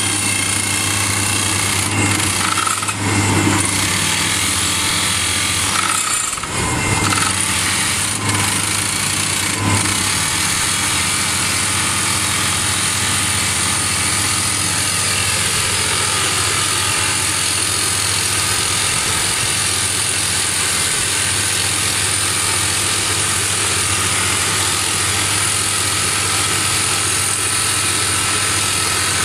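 SOOSAN STD14E top-hammer drill rig drilling into rock. Its TD45 hydraulic rock drill (drifter) hammers and rotates the drill string over the steady running of the rig's diesel engine, with a few louder knocks in the first ten seconds.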